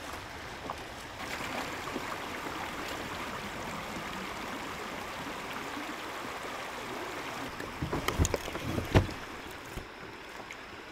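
River water rushing steadily over a shallow, rocky stretch around a kayak. A short cluster of sharp knocks comes near the end.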